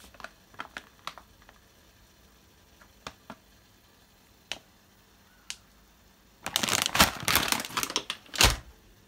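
Plastic bag of dried brown lentils crinkling as it is handled: scattered light crackles, then a louder spell of rustling and crackling with a couple of knocks about six and a half seconds in.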